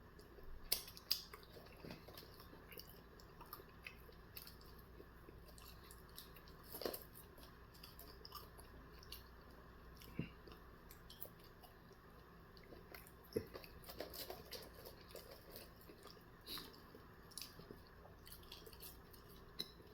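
A person chewing and biting food close to the microphone, quietly, with scattered soft mouth clicks and a few louder bites.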